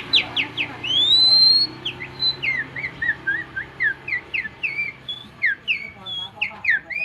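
A man whistling an imitation of a white-rumped shama's (murai batu) song. It opens with a few quick falling notes, then a long loud rising whistle, then a rapid string of short swooping chirps.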